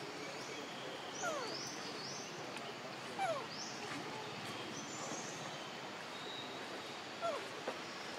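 Three short, falling animal calls a few seconds apart over a steady outdoor hiss.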